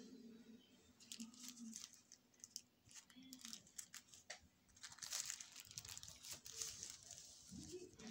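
Thin clear plastic bag crinkling and rustling as sunglasses are worked out of it. The crinkling comes in irregular spells, busiest about a second in and again from about five to seven seconds in.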